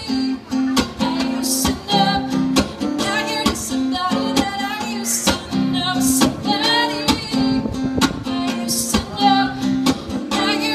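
A woman singing while strumming an acoustic guitar: steady rhythmic chords under her sung melody.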